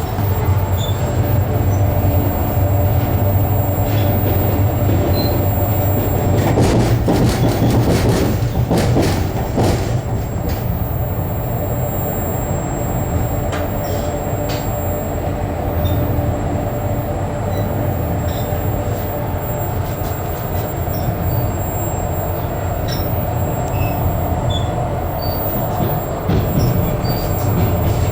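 Passenger train carriage running on rails, heard from inside at the window: a steady low rumble of wheels and running gear with a steady hum, and a brief run of sharp rattling clicks about seven to ten seconds in.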